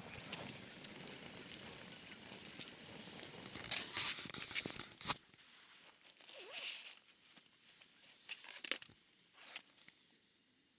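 Rustling and crinkling handling noises with a few sharp clicks. A steady hiss underneath drops away about five seconds in, leaving only scattered clicks and short rustles.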